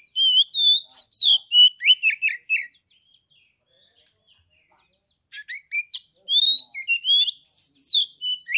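Male Oriental magpie-robin (kacer) singing loud, clear, open 'ngeplong' song: two phrases of high whistled notes, each ending in a quick run of short falling notes, with a pause of about two and a half seconds between them.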